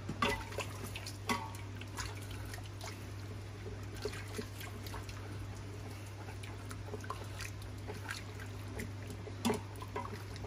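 Red wine bubbling at the boil in an Instant Pot's stainless steel inner pot, with a wooden spatula stirring and scraping across the bottom to deglaze it while the alcohol boils off. The bubbling and scraping come as many small irregular ticks and crackles over a steady low hum.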